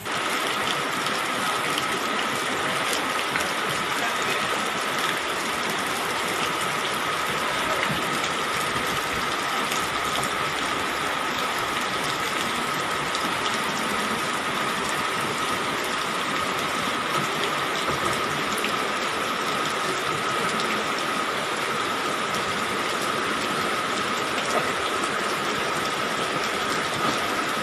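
Steady noise of rain and rushing floodwater, with a faint high thin tone running through it.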